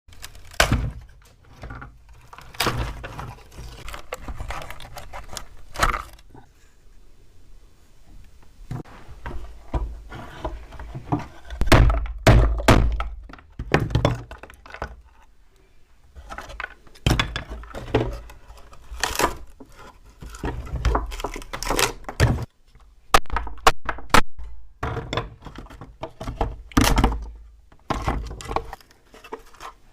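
Irregular wooden knocks, thunks and handling noises from working on a wooden speaker cabinet, some strikes sharp and close together, with a couple of brief lulls.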